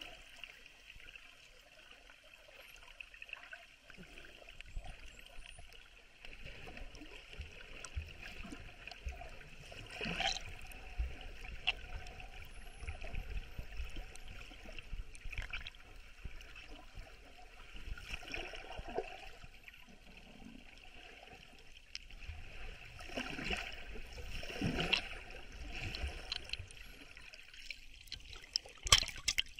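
Muffled underwater sound picked up by an action camera held below the sea surface: a steady hiss with water gurgling, swelling at times and broken by scattered knocks. Near the end there is a cluster of sharp splashy strokes.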